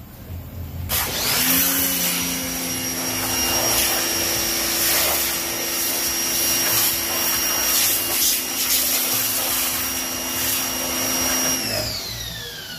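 Electric pressure washer (jet wash) starting up about a second in and running steadily, its motor whine under the hiss of the water jet. Near the end it winds down, its whine falling in pitch.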